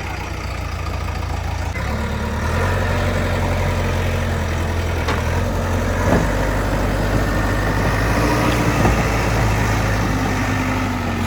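Heavy vehicle's diesel engine running steadily; its revs and loudness step up slightly about two seconds in and then hold.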